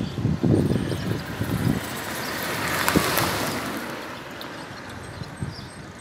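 A vehicle passing along the street: a broad rushing sound that swells to its loudest about halfway through, then fades away. Muffled low thumps come in the first two seconds.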